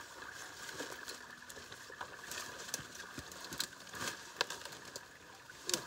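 Irregular rustling and crunching of dry cattail stalks, with scattered sharp clicks and clinks from a steel 330 body-grip beaver trap being handled. The sharpest clicks come near the end.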